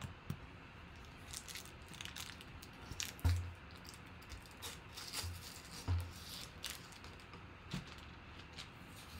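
Faint scattered computer clicks, with a few soft low thumps around the middle.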